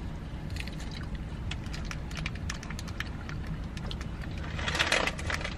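Close mouth sounds of someone eating an ice cream cone: wet smacking and short clicks, with a louder rustling burst near the end, over a steady low hum inside the car.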